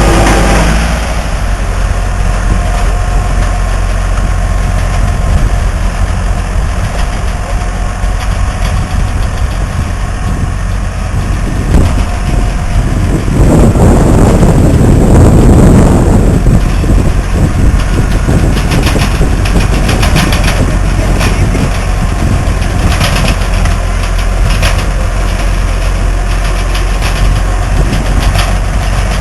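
Tractor diesel engine running steadily while powering a rotary drill, with a deep constant hum; it grows louder and rougher for a few seconds around the middle, and light rattling comes through in the second half.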